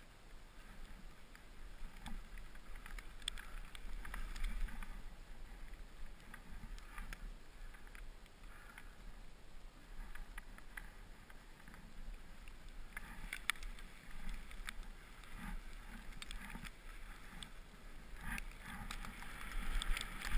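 Board edges and base sliding and carving through snow: a steady hiss broken by short scraping bursts, growing louder near the end, with a low wind rumble on the camera microphone.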